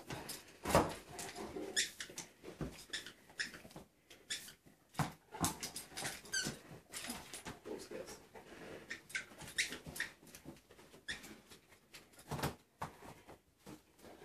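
Large dog playing with a tennis ball, nosing and mouthing it: irregular clicks, knocks and scuffs, with a few short high squeaky sounds near the middle.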